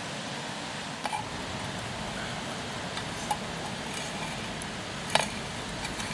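A steady rushing hiss with a handful of short, sharp clicks or taps, the loudest about five seconds in.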